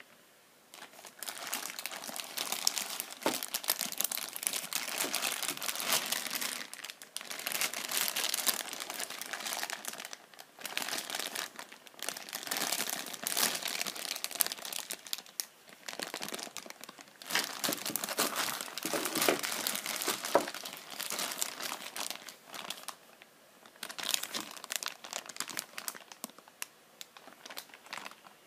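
Clear plastic bags crinkling and rustling as hands handle the bagged parts of a figure and its display base. The sound comes in several long bouts with short pauses between them, starting about a second in.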